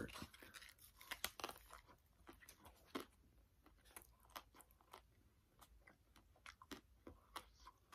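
Faint crackling from unwrapping and eating a Klondike ice cream bar: the foil wrapper crinkling and the chocolate shell crunching. It comes as scattered small clicks, thickest in the first two seconds and sparser after.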